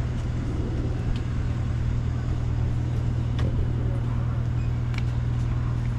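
A steady low mechanical hum with a few faint clicks over it.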